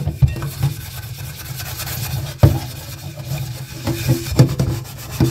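A greasy frying pan being scrubbed by hand in a stainless steel sink: quick rubbing strokes, with a few knocks, the sharpest about halfway through.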